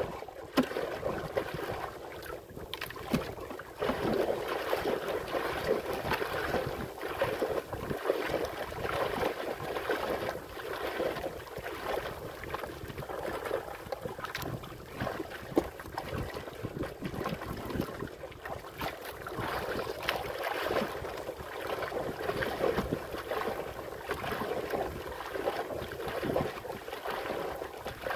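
Choppy sea water sloshing and splashing against the hull of a small wooden outrigger boat, with wind, swelling and ebbing.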